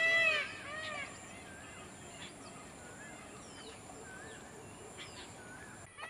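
Birds calling: a run of repeated harsh calls, each rising then falling in pitch, in the first second, then scattered short chirps and whistles.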